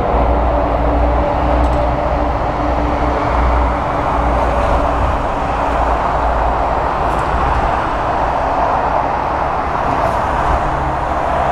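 Emirates Boeing 777 twin-engine jet landing: a steady jet rush and low rumble of its engines through the approach and touchdown. A faint steady hum in the noise fades out about halfway through.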